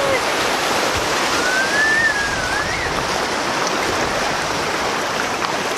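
Steady rushing noise, with one high, wavering call that rises and falls for about a second and a half, starting about a second in.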